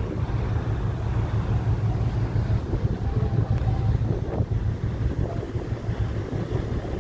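Wind buffeting the microphone on the open deck of a moving ferry, over the ship's steady low engine rumble.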